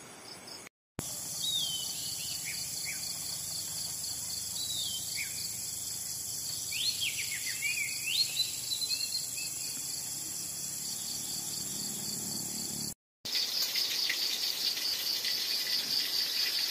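Forest insects chirring steadily with a few sliding, whistled bird calls over them. Near the end the insect sound turns louder and rapidly pulsing.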